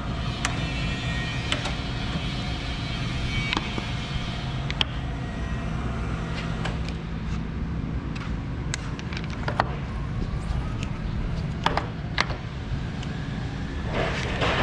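Acer AGS-1224AHD hydraulic surface grinder running: a steady hum holding several tones, with scattered sharp clicks and knocks and a denser run of knocks near the end.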